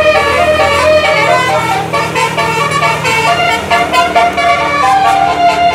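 A bus's musical 'telolet' air horn playing a quick tune of short stepped notes. Near the end it holds one longer note.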